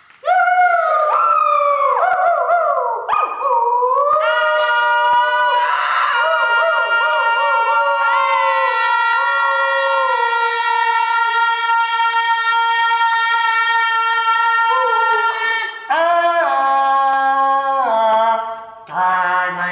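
Wailing, pitched tones from an interactive sound installation. The sound slides down in pitch over the first few seconds, wavers, holds one long steady note for about seven seconds, then drops in abrupt steps near the end.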